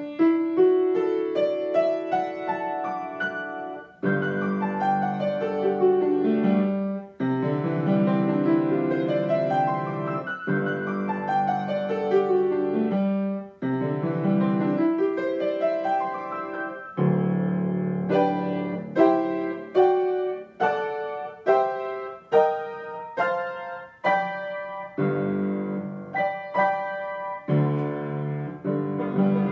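Solo piano playing flowing, rippling figures of notes. From a little past halfway it changes to separate chords struck about once a second, each ringing and fading before the next.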